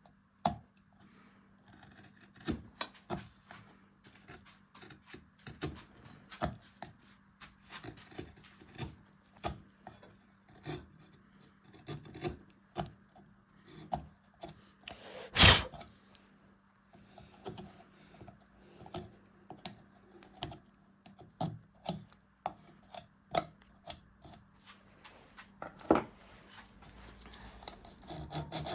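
Hand carving tool cutting and scraping into beech wood in short, irregular strokes, with one much louder cut about halfway through.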